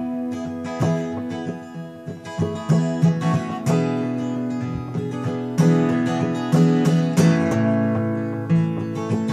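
Acoustic guitar strummed in a steady rhythm with the chord changing every couple of seconds: an instrumental song intro with no singing.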